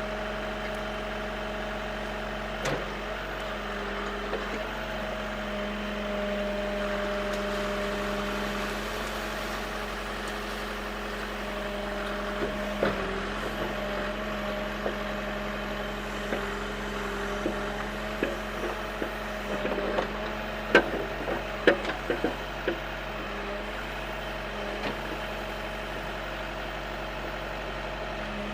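Backhoe engine running steadily at a low, even speed. In the second half come a series of sharp clanks and knocks, the loudest a few in quick succession about three quarters of the way through.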